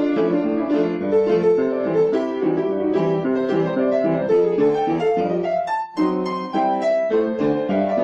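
Piano music playing a flowing run of notes, with a brief break about six seconds in.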